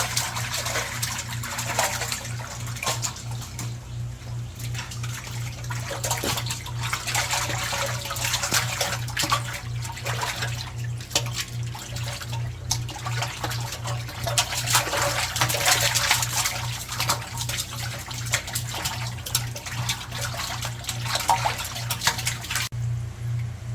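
Water splashing and sloshing with many small clicks and spatters, over a steady low hum that pulses at an even rate.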